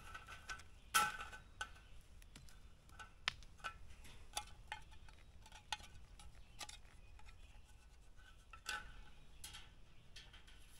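Wire-mesh live animal trap being handled: faint, irregular metal clicks and clinks, a few ringing briefly.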